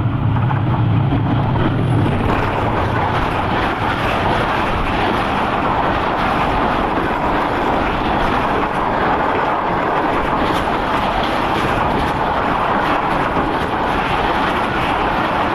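Passenger train running past close by as it arrives: a low engine hum from the diesel locomotive in the first two seconds, then the loud, steady rush and clatter of the coaches' wheels on the rails.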